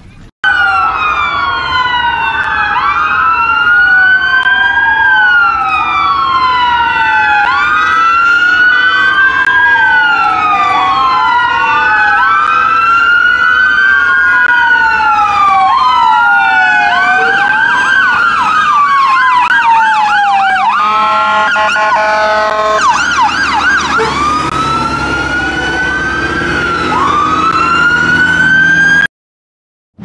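Several emergency vehicle sirens wailing at once, their slow rising and falling sweeps overlapping. About two-thirds of the way through one switches to a rapid yelp, then briefly to a stepped tone, before the sound cuts off suddenly near the end.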